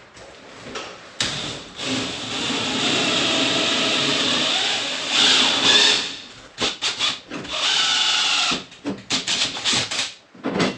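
Cordless drill with a hole saw cutting through the building's steel wall panel: one long run of about five seconds starting about a second in, then a string of short bursts.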